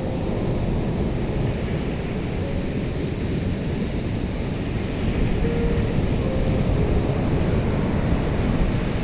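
Ocean surf: a steady, deep rush of waves washing in, swelling a little about halfway through.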